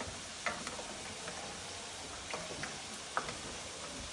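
A spoon stirring jumbo pasta shells in a pot of water, with a few light clicks of the spoon against the pot over a steady faint hiss.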